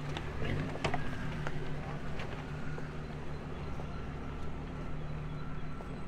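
A motor running steadily with a low hum, with a few footstep clicks on pavement in the first couple of seconds.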